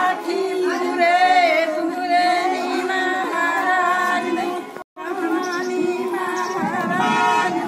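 Women's voices singing a song together without instruments, several voices overlapping. The sound drops out for an instant about five seconds in.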